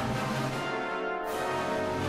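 Background music of sustained held chords, with a bright hiss swelling in just past the middle.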